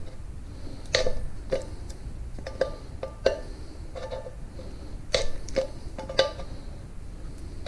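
Metal coffee can being pierced with the church-key-style hook on the end of a pair of pliers. Holes are punched one after another around the bottom edge, giving a string of sharp metallic clicks and snaps, irregular, a little more than one a second.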